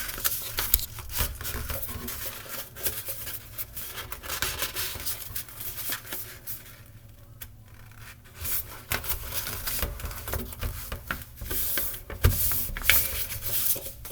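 A sheet of paper being folded and creased by hand into a paper airplane wing, crinkling and rubbing in short strokes, with a quieter pause about halfway through.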